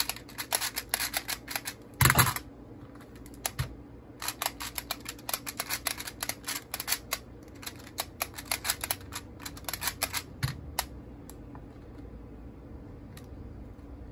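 Rubik's Clock dials being spun quickly by hand, giving rapid runs of sharp clicks, with one louder knock about two seconds in. The clicking thins out to a few scattered clicks near the end.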